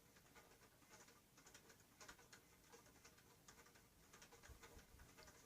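Faint, irregular little clicks and sticky squishes of a cornstarch slime dough being kneaded by hand.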